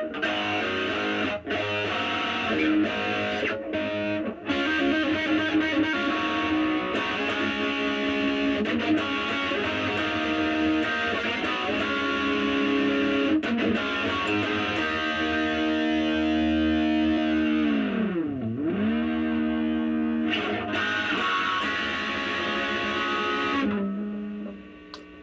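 Distorted electric guitar, an EVH Wolfgang, played through the high-gain red channel of an EVH 5150III LBX-S 15-watt lunchbox amp. About three-quarters of the way through, a Floyd Rose whammy-bar dive drops the held notes steeply in pitch and brings them back up. The playing stops near the end.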